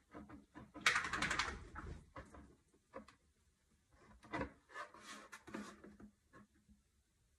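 Soldering iron tip scraping and tapping over the inside seams of a 3D-printed PLA helmet shell, in irregular scratchy scrapes and light clicks. The loudest is a crackly scrape lasting about a second, about a second in, with more short scrapes and clicks around four to six seconds.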